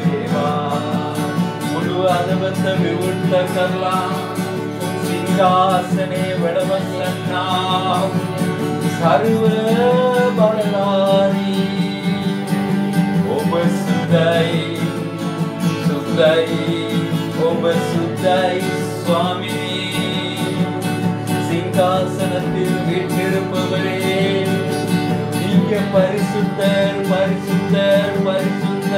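Music: a worship song, with singing over a guitar accompaniment.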